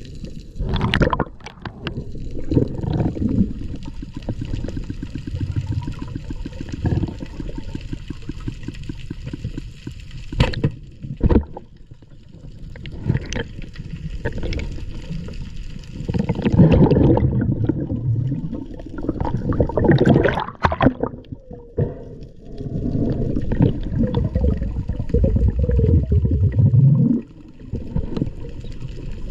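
Water gurgling and churning, mostly low in pitch, with a few sharp clicks or knocks scattered through it.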